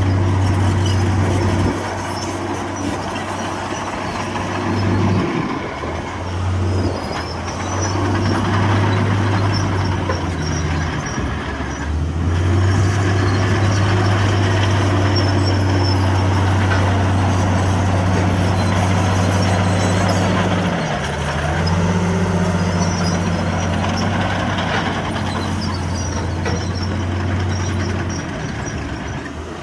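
Heavy diesel engines of earthmoving machines working, a steady low drone that dips and changes pitch several times as the load varies.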